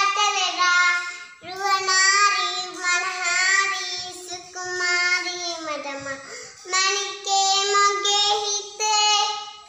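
A young child singing a melody in four phrases of drawn-out notes, with short breaths between them; the third phrase slides down in pitch at its end.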